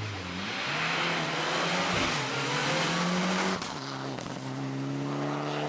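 Rally car engine under hard acceleration, the pitch climbing and dropping back at each upshift, twice in the first few seconds. It turns a little quieter after about three and a half seconds.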